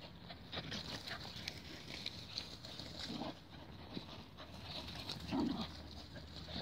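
Dogs playing chase, giving short low vocal sounds, the loudest about five and a half seconds in.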